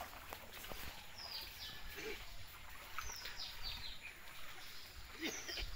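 Birds calling: short, high, falling chirps in small groups, about one, three and five seconds in, over a steady outdoor hiss.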